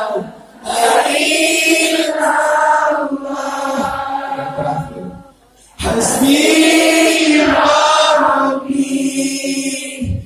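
Sholawat (Islamic devotional praise song) sung in unison: a man leading into a microphone with a large crowd of women singing along. It comes in two long sung phrases with a short break about halfway through.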